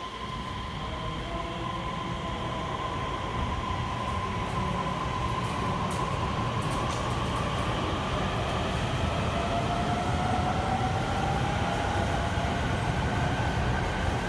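Electric train accelerating, its traction-motor inverter whine rising steadily in pitch as the running noise grows louder, with a few sharp clicks partway through.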